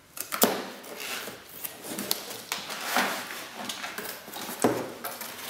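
Black plastic strapping bands on a cardboard parcel being cut with a box cutter and pulled off. Sharp snaps and clicks, the strongest about half a second in, at three seconds and near the end, over scraping and rustling as the cardboard box is handled.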